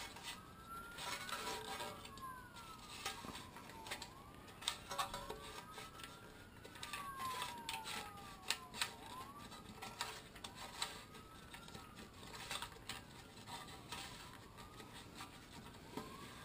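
Clicking and rubbing of a lawn mower recoil starter pulley turned by hand to wind up its spring, with scattered sharp clicks. Behind it, a siren slowly rises and falls in pitch, several times.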